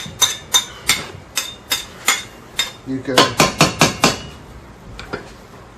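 Rhythmic knocking of a kitchen utensil, about three sharp strokes a second, coming quicker around three seconds in and stopping a little after four, with a couple of faint clicks near the end.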